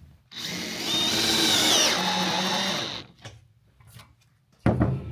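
A cordless drill/driver drives a self-drilling multi-seal roofing screw through the flat of a steel roof panel into a plywood deck. The motor runs for about two and a half seconds, its whine climbing and then dropping as the screw seats, then stops. It is snugged down until the washer seals tight.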